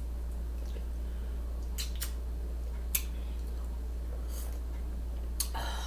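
A few sparse, sharp mouth clicks and smacks from chewing a sandwich, over a steady low hum.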